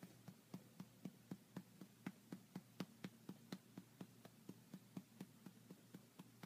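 Quiet, rhythmic patting of a hand on a baby's back while burping it, about four pats a second, a little louder through the middle.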